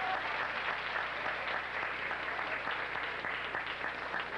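Large arena crowd applauding, a dense, steady patter of many hands clapping.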